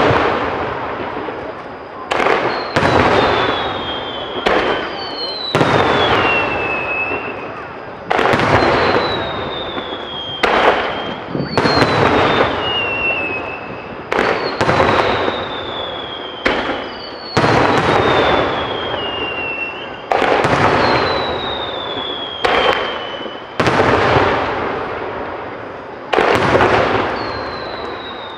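Fireworks display: aerial shells bursting one after another, roughly every second or so, each bang trailing off, with falling whistles sounding between the bursts.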